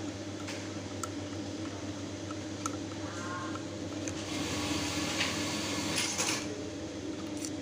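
Electric motor of a button-attaching machine giving a steady low mains hum, with a few light clicks and a short rustle from the wires being handled.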